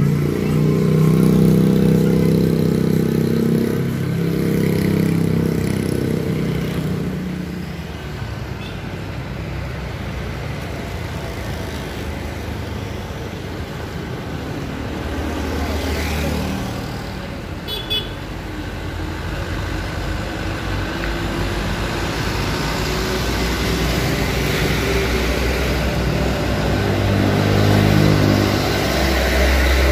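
Roadside traffic of motorcycles and medium diesel dump trucks passing in a convoy on a rough road, engines running, with horn toots. The heavy low truck-engine sound builds as the trucks draw near toward the end.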